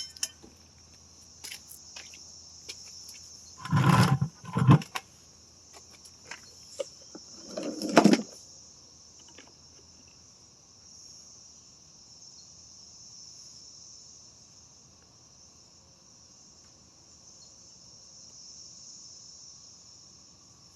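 Steady high-pitched chirring of insects such as crickets. A few short clattering knocks of parts or tools being handled, twice around four to five seconds in and once about eight seconds in.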